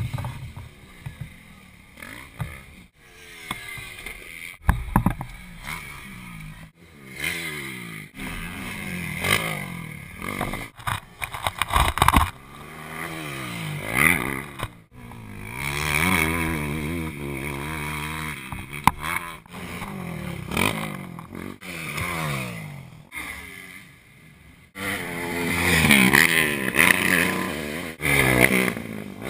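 Dirt bike engines revving up and down as bikes ride past, their pitch repeatedly rising and falling, with a few sharp knocks. The bikes are loudest near the end.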